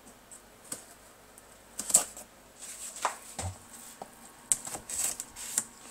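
Knife blade cutting packing tape along the edge of a cardboard box: scattered short scratchy strokes and clicks, with a dull knock about three and a half seconds in.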